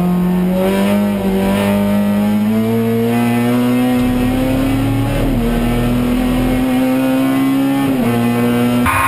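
Touring race car's engine heard from inside the cockpit, accelerating at full load with its note climbing steadily, broken by short dips about five and eight seconds in.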